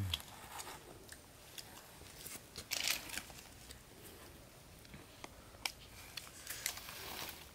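Boiled snails being picked at and eaten by hand: irregular small clicks and crunches of shell, with a denser cluster about three seconds in.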